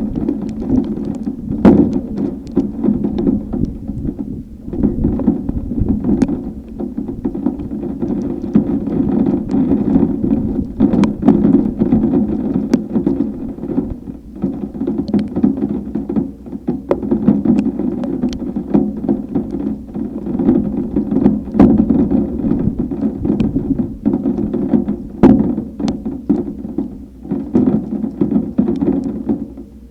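Severe thunderstorm wind: a loud, steady low rumble with many irregular sharp knocks and taps throughout.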